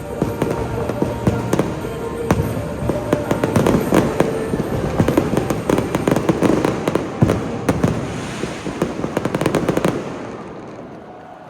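Fireworks display: rapid bangs and dense crackling bursts over background music, dying away about ten seconds in.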